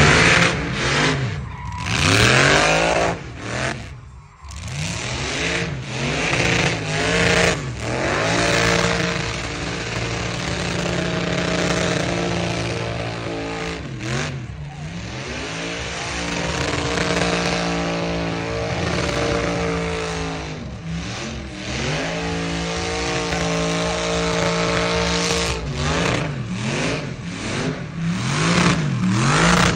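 Truck engine revving hard during a tyre-smoking burnout, held at high revs for several seconds at a time with the hiss of spinning tyres. The revs drop and climb again several times.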